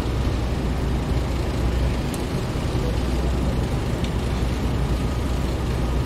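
Construction-site ambience: a steady low rumble of heavy engines and traffic.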